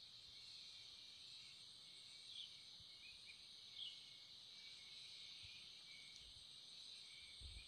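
Faint, steady high chirring of an insect chorus, with two short chirps about two and a half and four seconds in.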